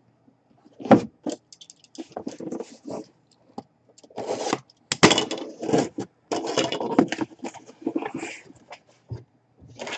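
Cardboard jersey boxes being handled and opened by hand: boxes scraping and rubbing against each other, with several sharp knocks, the loudest about a second in and again about five seconds in.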